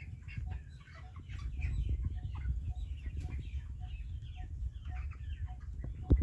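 A flock of chickens clucking and calling over one another, over a steady low rumble. A faint short tone repeats about twice a second, and there is a sharp knock near the end.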